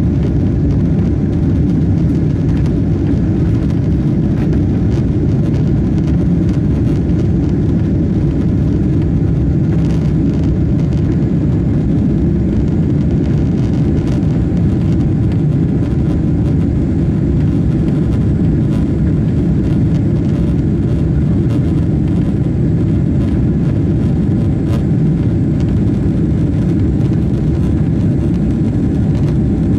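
Steady jet engine and airflow noise inside the cabin of an airliner climbing out after takeoff: a loud, even, low rumble.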